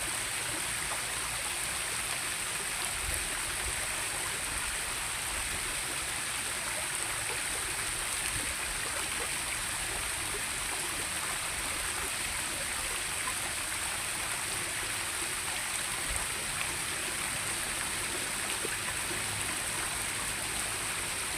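Steady rush of flowing water from a stream, unchanging, with a constant high-pitched hiss over it.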